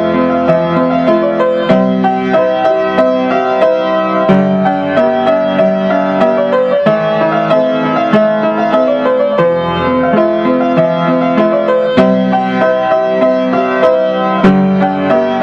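Background music led by piano, steady chords and repeated notes.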